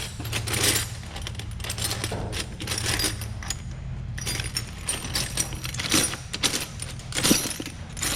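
Loose metal hand tools, Allen wrenches being sorted through, clinking and rattling in quick irregular clicks, with a short lull about four seconds in, over a steady low hum.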